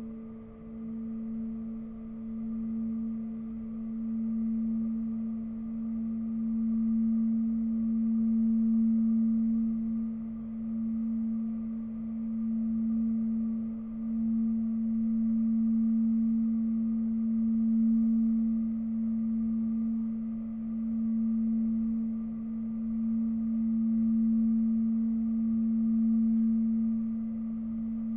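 Frosted quartz crystal singing bowl rubbed around its rim with a mallet. It holds one steady low hum that swells and eases every few seconds, with fainter overtones ringing above it.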